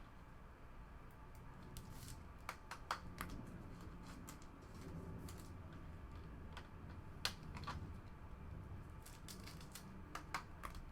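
Trading cards being handled: scattered light clicks and taps, with a short cluster near the end, over a faint low hum.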